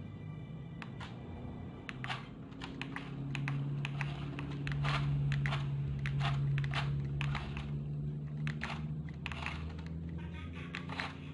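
Irregular sharp plastic clicks and clacks from a toy remote-control construction truck being handled, over a low steady hum that swells in the middle and eases off again.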